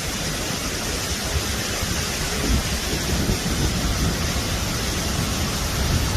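Waterfall heard close up: a loud, steady rush of falling water with an uneven low rumble beneath it.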